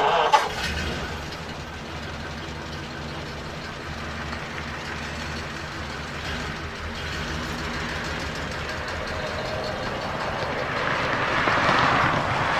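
1936 Ford Phaeton's flathead V8 engine running steadily, coming in suddenly with a loud burst and growing louder toward the end.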